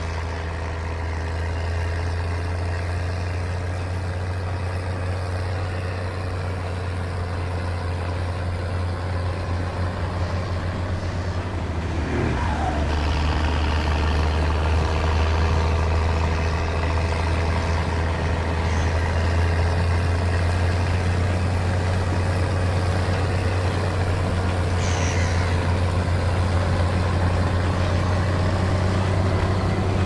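Case IH 1455 XL tractor's six-cylinder diesel engine running steadily under load while pulling a reversible plough and packer through the soil, with a deep hum that gets a little louder about halfway through.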